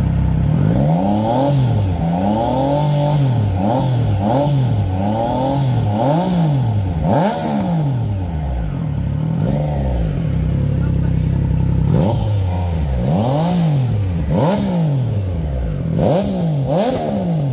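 Triumph Trident 660's inline three-cylinder engine revved through a freshly fitted IXIL full exhaust system, in a string of quick throttle blips that rise and fall in pitch. There is a lull near the middle, and then another run of blips.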